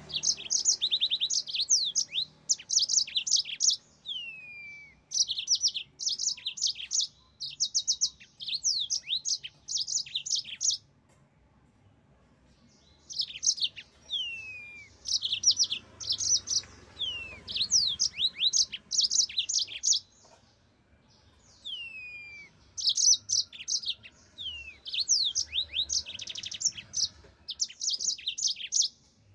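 Yellow-fronted canary singing: phrases of rapid, high trilled notes mixed with short downslurred whistles, broken by brief pauses, the longest about a third of the way in.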